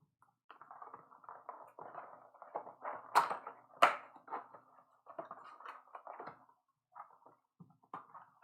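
Trading card packs and cardboard being handled, a crinkling rustle with two sharp snaps about three and four seconds in.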